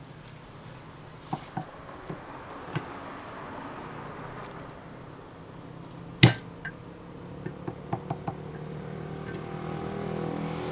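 Stall cooking clatter: metal utensils knocking and clinking, with one loud clank about six seconds in, over a steady hiss and low hum.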